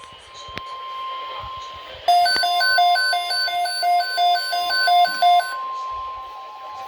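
Weather-radio emergency alert: a steady alert tone near 1 kHz, the NOAA Weather Radio 1050 Hz attention tone that follows the SAME data header. From about two seconds in to about five and a half seconds in, an electronic alarm beeps over it, about four beeps a second.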